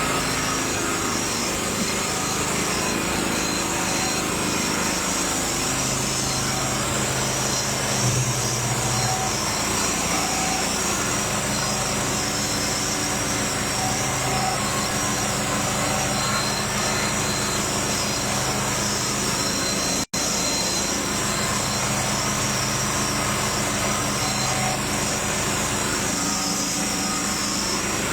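A small engine running steadily, with a constant hiss and a faint low hum that comes and goes; the sound drops out for an instant about twenty seconds in.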